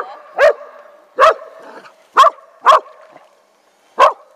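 A small dog barking in six sharp, loud single barks at a radio-controlled model hydroplane it is playing with.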